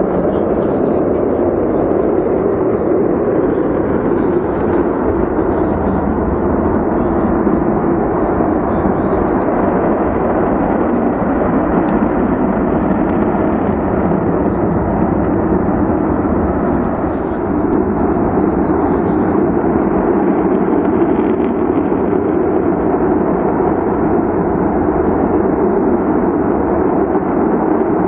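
Natural gas burning as it jets from a ruptured pipeline: a loud, steady rushing noise that holds even throughout.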